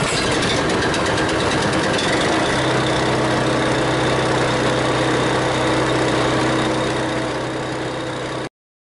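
Pressure washer engine running steadily while liquid pours from the open outlet hose fitting and splashes onto concrete. The blue antifreeze coming out of the outlet is the sign that the pump is winterized. A low steady hum firms up about two and a half seconds in, and the sound cuts off suddenly near the end.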